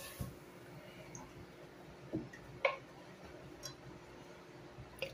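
A few faint, irregularly spaced knocks and clicks of cookware being handled in a kitchen.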